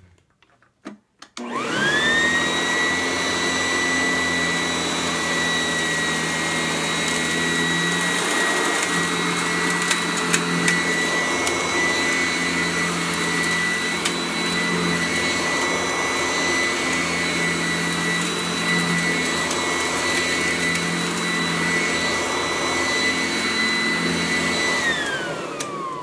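Sanitaire S675 upright vacuum cleaner switched on with a click and spinning up to a steady high motor whine as it cleans carpet, with a few sharp ticks around ten seconds in. Near the end it is switched off and the whine falls away as the motor spins down.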